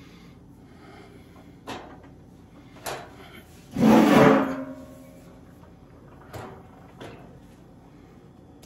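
Sheet-metal electrical panel cover being handled: a few light knocks, and about four seconds in a loud scraping clatter of the metal with a brief ring after it.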